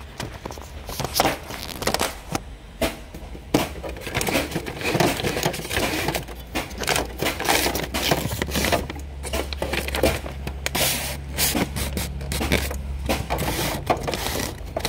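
Paper rustling and scraping, with irregular clicks of handling, as a sheet is loaded and pushed into a printer's paper feed. A low steady hum runs underneath from about four seconds in.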